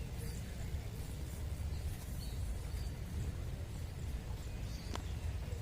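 Outdoor background: a steady low rumble with a few faint high chirps, and one sharp click about five seconds in.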